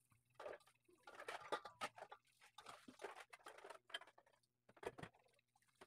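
Faint handling noise from a small glue tube: irregular crinkling rustles and small clicks as the tube is squeezed and its cap is worked by hand.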